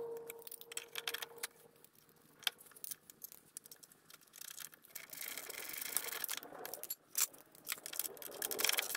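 Small metal clinks and rattles of nuts, bolts and a hand wrench being handled while a deck adapter bracket is bolted to the side of a mower deck. A metallic ring fades out in the first two seconds, and quick ratchet-like clicking comes near the end.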